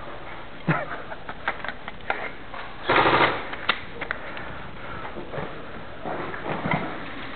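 Airsoft electric gun firing a short rapid full-auto burst about three seconds in, with scattered sharp clicks and snaps before and after it.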